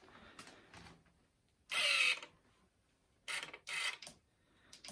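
Shimano Di2 electronic derailleur shifting on its motor: three short whirs, one a little under two seconds in and two close together near the end. The derailleur is responding on the freshly rebuilt battery.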